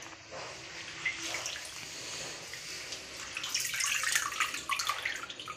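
A hand swishing leafy greens around in a steel bowl of water, washing them: sloshing and splashing that grows louder and busier about halfway through.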